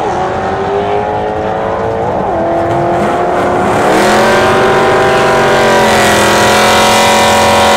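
A 1993 hatchback's 347 big-bore V8 pulling hard down a drag strip, its pitch climbing and dropping sharply on gear changes at the start and at about two seconds. From about four seconds a louder, steady engine note takes over, from a car running much closer.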